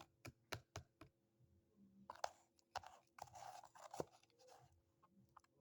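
Faint clicks and taps from small utensils and containers being handled while salt water is mixed for a gargle: a quick run of about five sharp clicks in the first second, then rustling and scraping with a few more taps.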